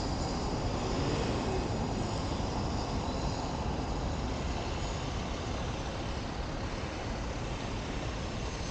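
Steady road and wind noise from a car driving slowly over a cobblestone street, picked up by a camera mounted on the car's roof.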